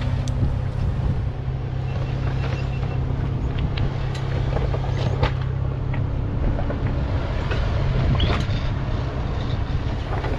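An off-road 4x4 engine running at low speed while crawling a rocky trail, with scattered clicks and crunches of tyres on rock and gravel.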